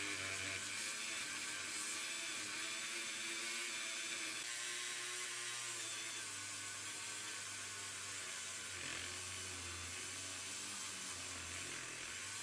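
Handheld rotary tool spinning a yellow buffing wheel against a zinc diecast car body: a steady whir that changes pitch slightly about four and a half seconds in.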